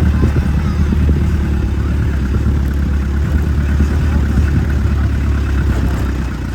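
Vehicle engine running steadily under way over rough ground, a deep rumble with some clatter over it.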